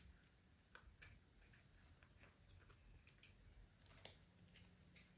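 Near silence with a few faint clicks and taps of small plastic mating-nuc frame pieces being handled and twisted apart.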